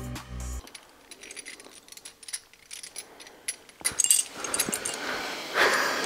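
Metal rings of a wire disentanglement puzzle clinking and rattling in the hands, light scattered clicks after background music cuts off about half a second in. Near the end a dog's voice comes in, wavering in pitch.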